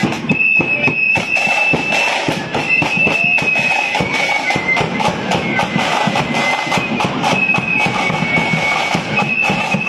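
Marching flute band playing: a shrill, high flute melody carried over a steady pounding of bass and snare drums.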